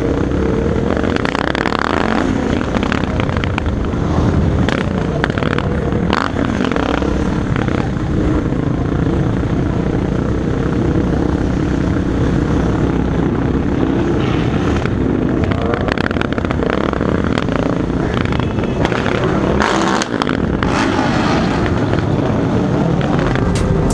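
Motorcycle engines of a large group ride running at road speed, close by and all around, with engine pitch rising and falling as the bikes throttle and ease off over a steady rushing noise.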